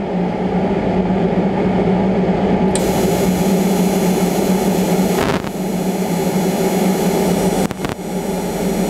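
Longevity TIG welder running with its torch trigger held, a steady hum and rush of noise, as argon shielding gas flows through the flowmeter. A brighter gas hiss comes in suddenly about three seconds in as the flowmeter knob is turned up, with a couple of small clicks later on.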